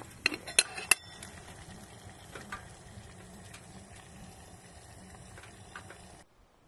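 Metal lid of a camping kettle on a wood stove being lifted off: three sharp, ringing clinks in the first second, then a few lighter taps. Underneath, a steady hiss of the hot, steaming water, which stops abruptly near the end.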